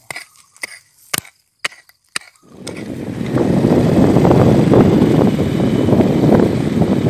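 A few sharp knocks of a digging tool striking stones in the soil, about every half second. Then, about two and a half seconds in, a loud, steady rushing noise of wind and movement on the microphone takes over.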